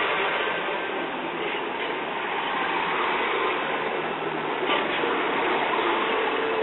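Yufuin no Mori limited express diesel train running on the rails, a steady even noise of wheels and engine.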